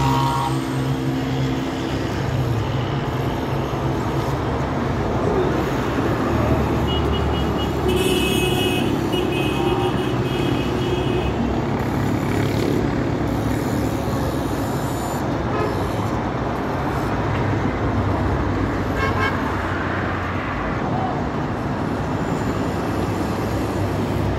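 Steady rumble of city street traffic, cars and engines passing below. Car horns beep in quick short toots from about seven to eleven seconds in, and briefly again near nineteen seconds.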